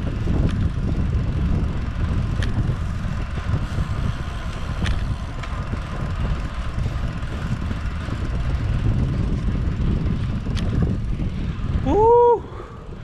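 Wind rumbling on the microphone during a bike ride, with a few faint clicks. Near the end a short pitched call rises and falls once.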